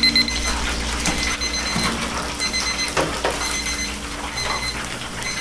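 Digital kitchen timers beeping in short repeated bursts over the steady sizzle of a deep fryer's oil, with a couple of clicks about three seconds in.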